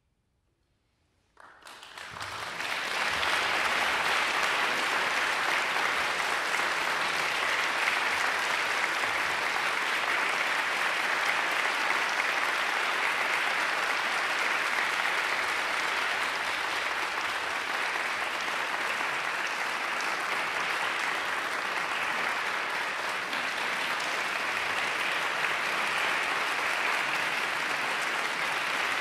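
Audience applauding at the end of a chamber-music performance: a moment of silence, then clapping breaks out about a second and a half in, swells within a second or two and holds steady.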